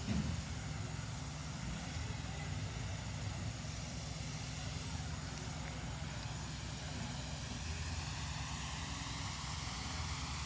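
Water spraying steadily from a hose nozzle onto a plastic toy, a constant hiss over a low rumble, with a brief low bump at the very start.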